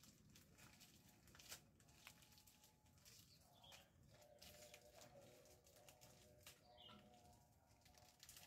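Near silence: faint outdoor background with scattered soft clicks and a few faint, distant tones.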